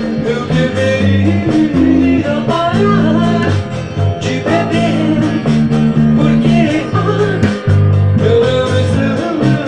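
Rock song with a singing voice, guitar and drums, over a bass guitar line of held low notes that change every half second or so.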